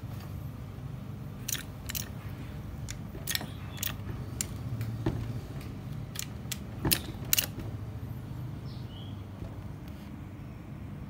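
Irregular sharp clicks and ticks from a homemade leather clicker press, a hydraulic bottle jack driving a steel plate and cutting die down into leather, over a low steady hum. The clicks come singly at first and then several close together about two-thirds of the way through.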